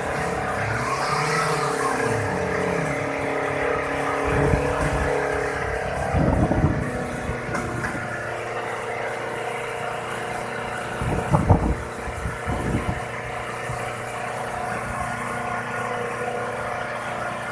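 Off-road 4x4's engine and winch working as the vehicle is hauled up a muddy bank: a steady mechanical whine, with four short louder bursts spread through.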